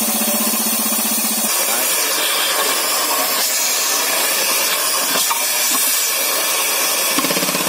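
MK5 compressed-air rock drill running: a steady rush of venting air, with the rig's rapid pulsing beat. The beat drops out about a second and a half in, leaving only the air hiss, and comes back near the end.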